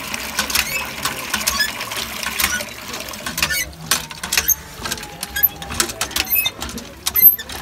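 Hand pump worked by its lever handle, the mechanism clanking and clicking irregularly with each stroke, while water pours and splashes into a plastic bowl as vegetables are rinsed under the spout.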